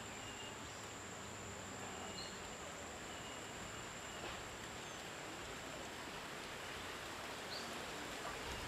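Faint outdoor background: a steady hiss with a thin, constant high-pitched whine and a few brief, faint chirps scattered through.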